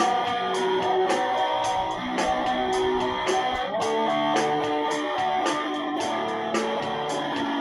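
Guitar music: a guitar plays single held notes that change pitch every half second or so, over a steady beat.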